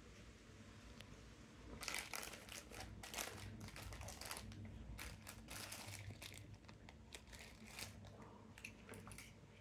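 Clear plastic bags holding ribbon cables and adapters crinkling as a hand moves them about. A dense patch of crinkles starts about two seconds in, then thins to scattered crinkles toward the end.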